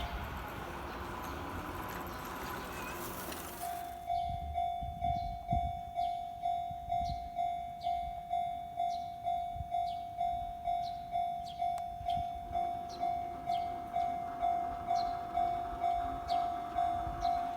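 A train passing over a Kintetsu Minami-Osaka Line level crossing, its running noise fading away over the first few seconds. About four seconds in the crossing's alarm bell starts, a single tone ringing steadily at about two strikes a second.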